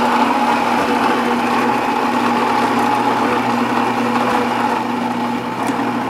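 Saeco Exprelia Evo superautomatic espresso machine's built-in grinder grinding beans at the start of a one-touch cappuccino cycle: a loud, steady motor whir with a low hum.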